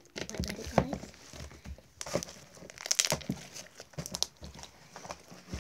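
Slime squeezed and kneaded right against a microphone, making an irregular crunching sound of crackles and small pops, with a few louder crunches.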